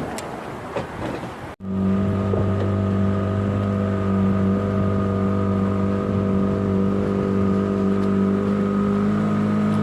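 Wind and water rushing for about a second and a half, then, after a sudden cut, a boat's engine running steadily at an even speed.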